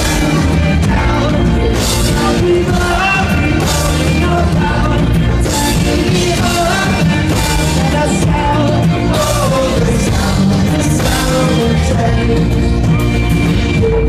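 Live reggae-rock band playing: bass and drums with a voice singing over them, and a bright cymbal crash roughly every two seconds.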